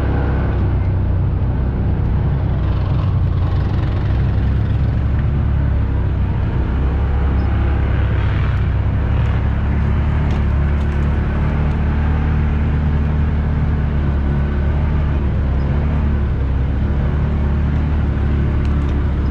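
Off-road vehicle engine running at a steady, even drone as it drives a dirt trail, heard from on board.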